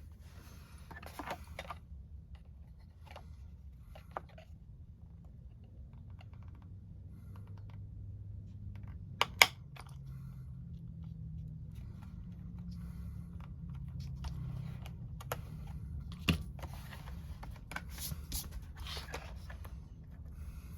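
Scattered light clicks and taps of small parts being handled and fitted together on a workbench, over a low steady hum. The sharpest clicks come as a quick pair about nine seconds in and again about sixteen seconds in.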